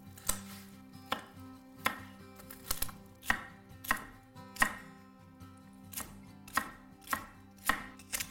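Chef's knife chopping green stalks into short pieces on a wooden cutting board: a sharp knock of the blade on the board, slow and steady, more than a dozen times. Soft background music underneath.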